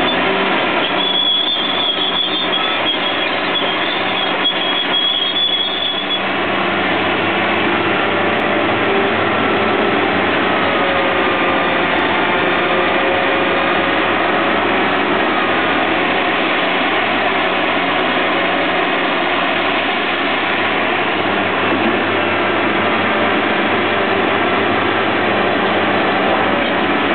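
Liebherr 984 crawler excavator's diesel engine running under load with its hydraulics working as it digs gravel, a steady heavy machine sound whose pitch rises and falls slightly.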